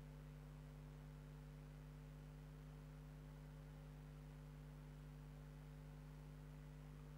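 Near silence with a steady low electrical hum and faint hiss.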